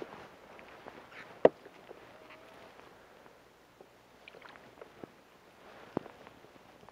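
Rustling of gloves and clothing while fishing line is pulled up hand over hand through an ice hole, with scattered small clicks. A sharp knock comes about a second and a half in, and another knock about six seconds in as a perch lands on the snowy ice.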